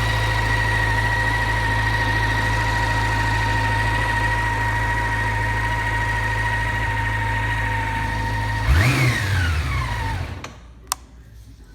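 Honda CB400 Super Four (NC31) inline-four idling steadily with a faint steady whine and no abnormal noise. About nine seconds in the revs briefly rise, then the engine winds down and stops, followed by a single click.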